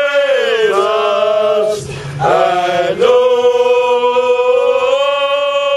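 A group of football supporters singing loudly together in unison, drawing out long notes: a brief break about two seconds in, then one long held note.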